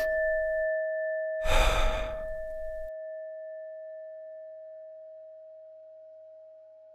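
A single struck chime ringing on with a clear tone and fading slowly, over audible breathing: one breath trailing off in the first second, then a long sighing breath from about a second and a half to three seconds in.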